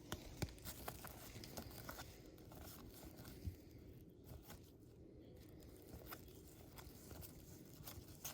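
Faint clicks and soft rustles of 1991 Pro Set football cards being handled and flipped through by hand.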